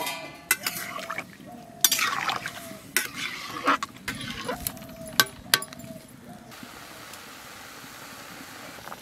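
A spatula stirring chicken pieces in water in a metal kadai, scraping and clinking against the pan for the first six seconds or so. After that comes a steady bubbling as the water boils.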